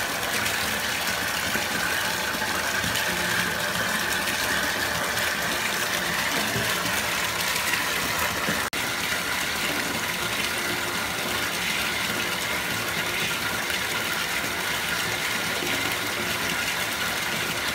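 Tap water gushing steadily into a bathtub as it fills.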